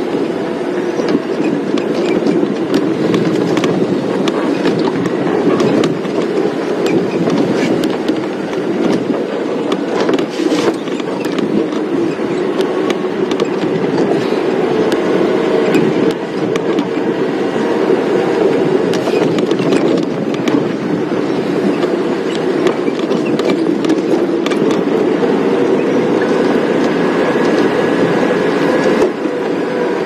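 Safari game-drive vehicle driving along a bumpy dirt road: steady engine and road rumble with frequent rattles and knocks.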